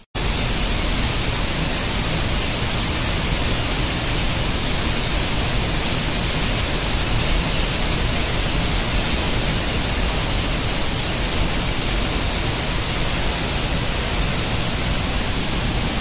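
Steady, loud rush of a waterfall heard from a cave right behind the falling water, with spray close to the microphone.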